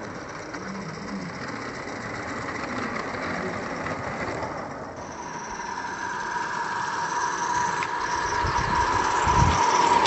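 Bowande Porter live steam model locomotive running along garden-railway track. The sound changes suddenly about five seconds in, then grows louder, with a steady high tone, as the locomotive draws close.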